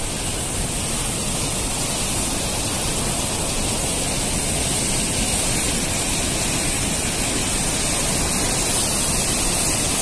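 Swollen, fast brown floodwater rushing through and below a barrage's gates: a steady, unbroken rush of water.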